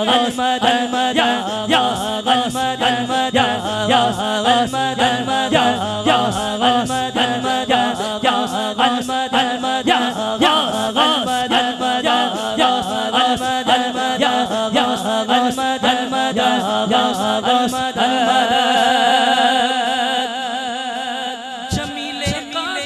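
A male naat reciter singing a devotional chant into a microphone, with others joining in, over a steady beat. Near the end he holds one long wavering note before the sound drops away.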